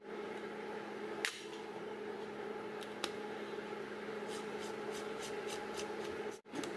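Light clicks and taps of a metal espresso portafilter and a coffee distributor being handled, over a steady low hum. A sharper click comes about a second in, another about three seconds in, then a run of faint ticks about four a second as the distributor sits on the basket and is turned.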